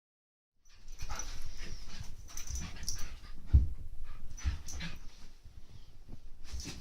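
Small puppies play-fighting: irregular scuffling and bumping with low thumps, the loudest about halfway through, along with small dog noises.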